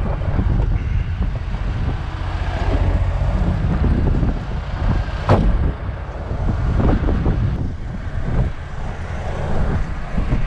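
Wind buffeting the camera microphone over a low vehicle rumble, with a few short knocks, the sharpest about five seconds in.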